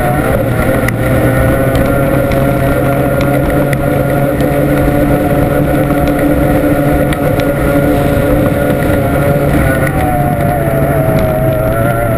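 Formula 1 tunnel-hull race boat's outboard engine heard on board, running steadily at racing speed, its pitch shifting slightly near the start and again about ten seconds in.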